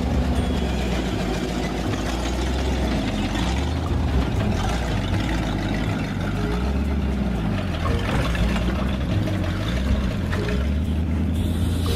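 Old dump truck's engine running close by as it is driven, its pitch rising and falling with the throttle.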